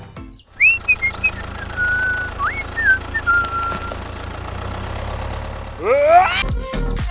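A motor running steadily with a low pulsing hum, while whistle-like notes glide up and hold above it. Near the end a fast rising pitched sweep.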